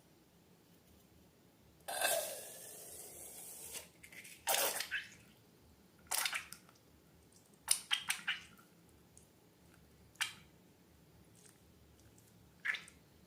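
Slime being squeezed and worked by hand, giving a string of short wet squishes and crackles a second or two apart, with a longer hiss about two seconds in.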